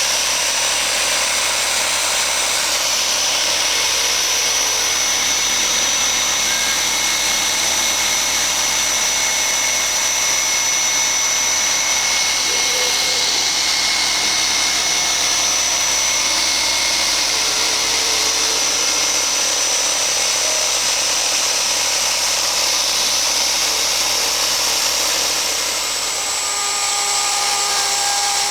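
ASIMA AR 1200 CNC router spindle running and cutting a die-board base: a steady high-pitched whine over a constant rush of cutting noise, easing off slightly near the end.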